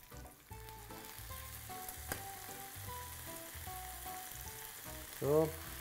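Garlic and sun-dried tomatoes sizzling in olive oil in a frying pan while a wooden spatula stirs them, with a single sharp click about two seconds in.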